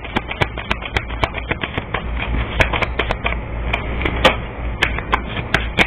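Tarot cards being handled and shuffled by hand: a quick, irregular run of light clicks and snaps, over a low steady hum.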